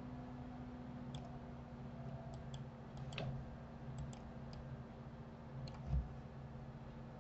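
Computer mouse buttons clicking: about a dozen light, sharp clicks at irregular intervals, including a quick run of three near the middle. A low thump about six seconds in is the loudest sound, and a faint steady hum runs underneath.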